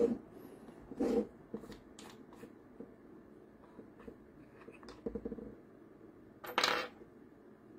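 Hands working the keyless chuck of a cordless drill: short grip-and-twist handling noises with scattered light clicks, and one louder brief scuff near the end.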